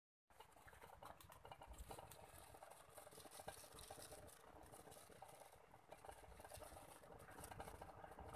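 Faint bubbling and fine crackling of chicken pieces simmering in teriyaki sauce in a pan under a glass lid. It starts just after a short gap at the beginning.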